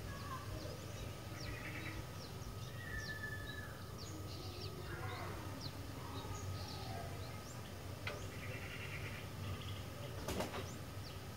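Sooty-headed bulbuls (kutilang) calling with short bubbly phrases, mixed with many thin, high, falling chirps, over a steady low hum. A single sharp click comes near the end.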